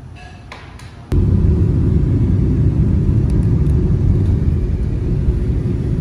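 Steady low rumble of road and wind noise heard from inside a moving car, starting abruptly about a second in.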